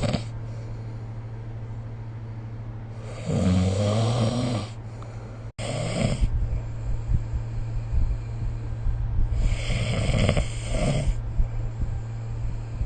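A sleeping person snoring. There are separate snores a few seconds apart: one about three seconds in, a short one near six seconds, and a longer one about ten seconds in. A steady low hum runs underneath.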